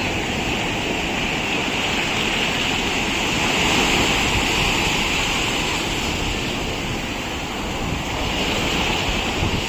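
Sea waves breaking and washing up a sandy beach, a steady surging hiss that swells about four seconds in and again near the end.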